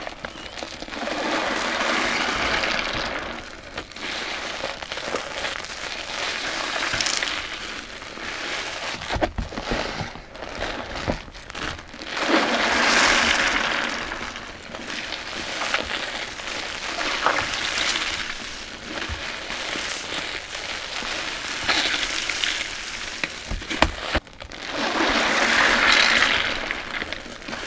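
A soap-soaked sponge squeezed over and over in thick shampoo lather: wet squelching and crackling of popping foam, with three louder, longer squeezes.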